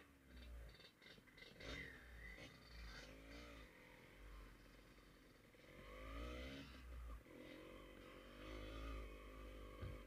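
Faint motorcycle engine whose pitch rises and falls with the throttle, over uneven wind rumble on the microphone.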